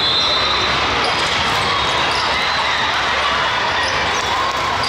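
Steady din of a volleyball tournament hall: background voices with volleyballs being hit and bouncing on the courts.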